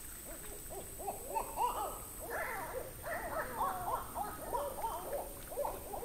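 Owls calling: a rapid string of rising-and-falling hoots, some of them overlapping.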